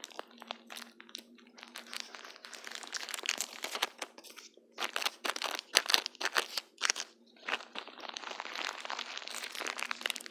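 Close-miked crackling and crinkling of plastic film or tape being handled and peeled, in irregular clusters of crackles with short pauses about five and seven and a half seconds in; loudest around the sixth second.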